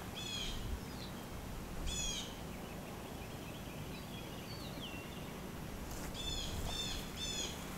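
Outdoor ambience with a bird calling: short chirps that sweep downward, once near the start, again about two seconds in, and three in quick succession near the end, with a few fainter calls between. A faint steady low hum lies under it.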